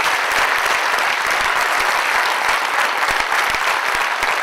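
A large audience of several hundred people applauding steadily, a dense mass of clapping hands.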